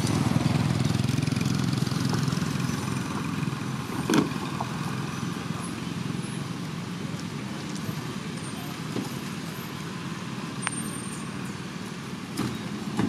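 A motor vehicle running past on the road, its rumble loudest at first and slowly fading, with a single sharp knock about four seconds in.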